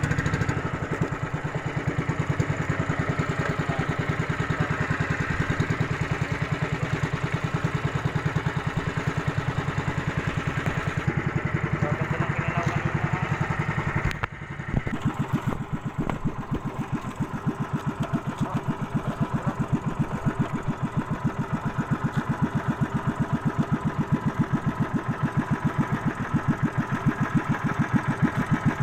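Small engine of a motorized outrigger boat running steadily at cruising speed, its firing an even, fast beat. It dips briefly about halfway, then carries on as before.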